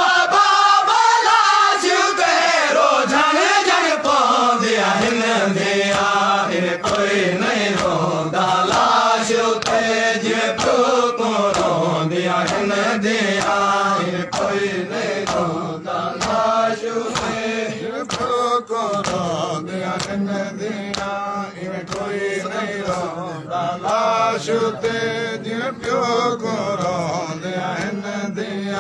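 A group of men chanting a Shia noha lament in unison, led by one voice on a microphone. A steady beat of hand strikes runs under the chant.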